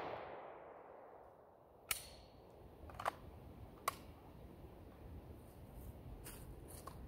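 Echo of the last 9 mm Glock 19X pistol shot fading out over about a second, then quiet with three faint sharp clicks, about two, three and four seconds in.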